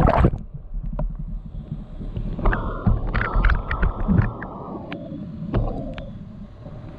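Whitewater kayaking in floodwater: a loud splash as the camera goes into the brown water, then a muffled low rumble with the high sounds gone. About two and a half seconds in, rushing, splashing water comes back as it surfaces, with sharp knocks and a steady low rumble on the microphone.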